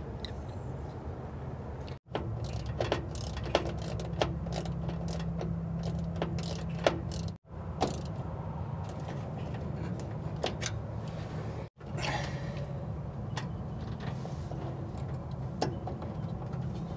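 Scattered sharp metallic clicks and taps of hand tools and fasteners as a voltage regulator is unbolted and swapped on a truck's firewall, over a steady low hum. The sound cuts out abruptly three times.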